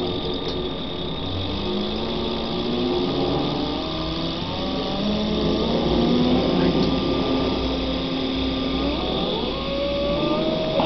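Z-axis stepper motor of a Bridgeport Series 1 CNC milling machine running on a test driver circuit, its whine shifting in pitch in steps as the speed is changed, with a rising glide near the end.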